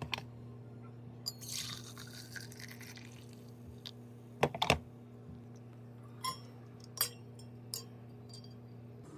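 A steady low electrical hum that cuts off near the end, with scattered clicks and clinks, a short run of liquid-like sound and a loud cluster of knocks about four and a half seconds in.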